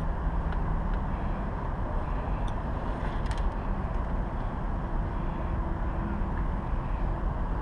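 Steady outdoor background noise, a low even rumble, with a few faint clicks.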